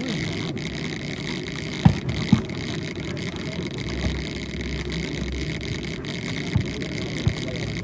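Volleyball being hit during play: short thumps twice about two seconds in and twice more near the end, over a steady low background rumble.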